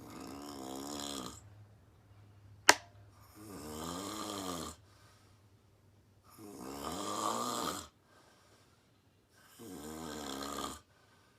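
A sleeping woman snoring: four snores about three seconds apart, each lasting about a second and a half with a wavering pitch, and quiet breathing gaps between them. A single sharp click sounds between the first and second snores and is the loudest sound.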